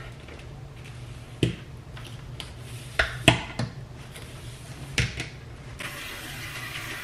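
A few sharp clicks and knocks over a steady low hum, about one and a half, three and five seconds in, the loudest just after three seconds.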